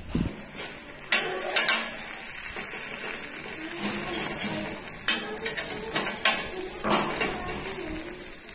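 Slotted metal spatula knocking and scraping on a flat metal griddle as a filled flour tortilla is folded and pressed into a burrito: sharp clicks scattered through, over a steady faint hiss.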